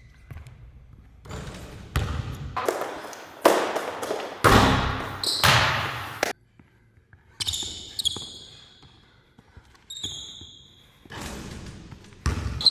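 A basketball bouncing on a court in several short game clips, with brief high-pitched squeaks, likely sneakers on the floor. The sound cuts abruptly between clips.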